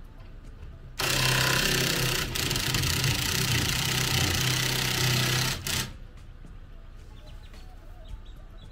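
A small electric motor, of the kind used to raise or lower camper jack stands, runs under load for about five seconds, starting suddenly about a second in and stopping abruptly.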